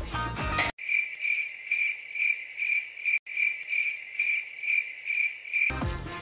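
Cricket chirping sound effect: a high, pulsing chirp repeating about three times a second. It cuts in abruptly in place of the background music just under a second in, with a brief dropout partway through, and cuts out shortly before the music returns near the end.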